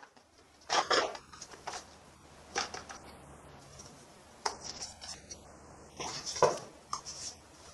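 Hard plastic parts of a toy shield dart blaster being handled and folded out: irregular clicks, clacks and rattles, with a cluster of sharper knocks near the end as foam darts are pushed into the barrels.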